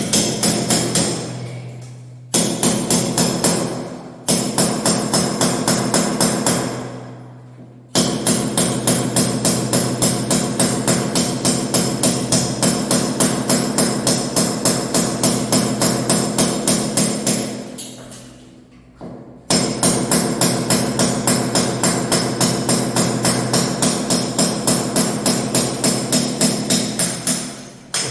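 Electric hammer drill boring into a masonry wall with a rapid hammering rattle over a steady motor hum, as a hole is drilled for the air conditioner. The trigger is pulled in several bursts, and each time the drill winds down over a second or two before starting again.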